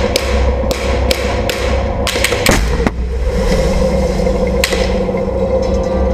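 Battle tank engine droning steadily under a run of sharp cracks and metallic knocks, with a cluster of heavier blasts about two and a half seconds in. The engine drone grows stronger and steadier after the blasts.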